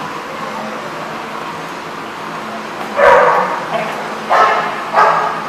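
Dogs play-fighting, with loud barks breaking out about three seconds in and twice more near the end, over a steady background din.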